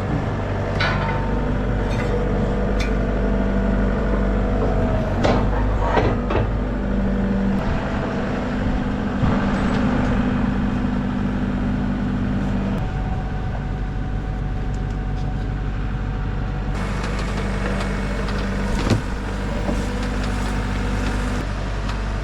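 An engine running steadily at idle, with scattered knocks and clanks over it.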